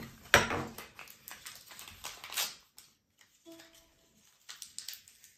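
Hands opening toy packaging: cardboard and a foil blind-bag wrapper crinkling and rustling, with a sharp snap a third of a second in and scattered clicks after.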